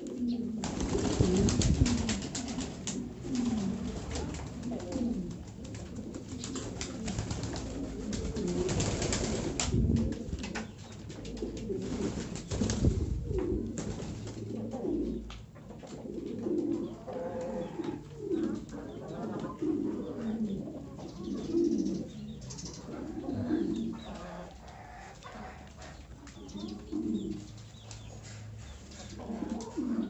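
King and French Mondain pigeons cooing over and over, several birds overlapping in short low-pitched coos. During the first half, loud bursts of rustling and clicking come and go among the calls.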